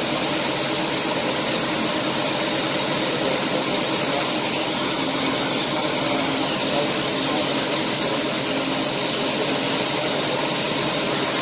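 Steady drone of a Claas combine unloading grain through its auger spout into a grain cart, the engines and the stream of pouring grain blended into a constant hiss that does not change.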